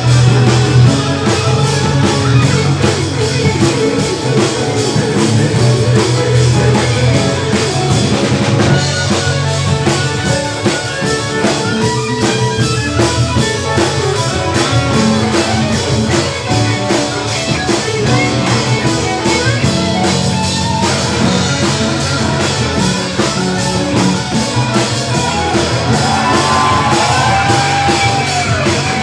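Jazz-rock fusion band playing live: electric violin over electric guitar, bass and drum kit. Near the end a melody line bends up and down in pitch.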